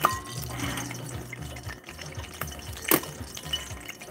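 Curry leaves sizzling and crackling in hot oil in a steel pan held over an open wood fire, with sharp pops, one right at the start and the loudest about three seconds in.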